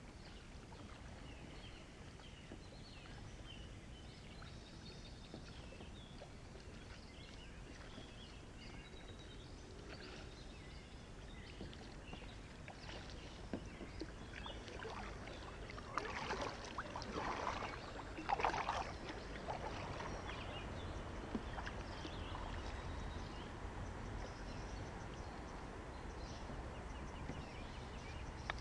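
Kayak paddle dipping and splashing in calm river water, with a run of louder strokes and drips a little past the middle, over a low steady rumble.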